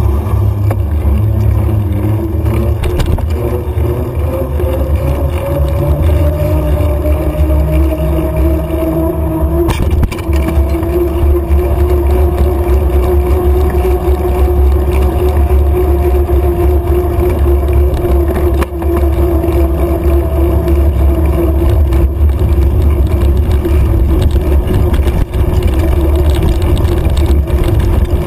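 Wind buffeting the microphone of a camera on a mountain bike riding at race speed, a loud steady rumble. Over it runs a steady hum that rises slowly in pitch over the first ten seconds or so and fades out about three-quarters of the way through.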